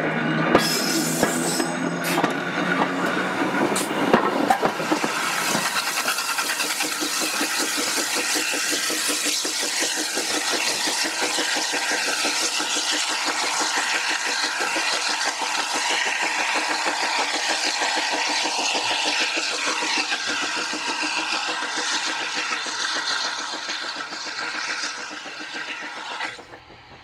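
Great Western Railway steam railmotor No. 93 working past: a steady rush of chuffing steam exhaust and wheels running on the rails. It swells within the first second, holds loud, eases off near the end and cuts off suddenly.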